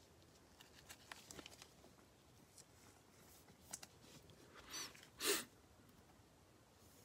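Faint clicks and rustles of trading cards being handled and flipped, with a brief louder rush of noise a little past five seconds in.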